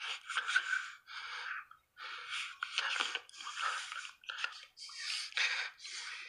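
Breathy, whisper-like voice sounds in short broken runs, without any low voiced pitch.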